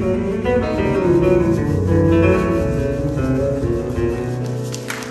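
Two acoustic guitars playing a picked instrumental passage that closes on a held low note, with applause starting just as the last note rings.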